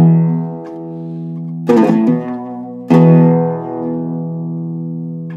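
Iraqi-style Zeryab oud, with a cedar soundboard and walnut back, plucked in a slow demonstration. A strong note sounds at the start, a quick run of a few notes follows a little before halfway, and another strong note sounds about three seconds in. Each is left to ring out and fade.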